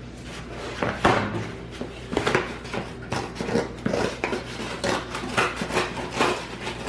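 A cardboard shipping box being cut open: a blade scraping and slicing through packing tape and cardboard, with irregular crackles and scrapes starting about a second in.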